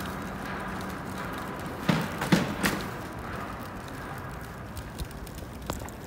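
Three sharp knocks in quick succession about two seconds in, over steady background noise, with a fainter click near the end.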